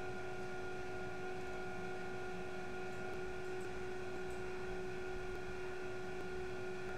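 Steady electrical hum with faint hiss, a few steady tones, and no other events.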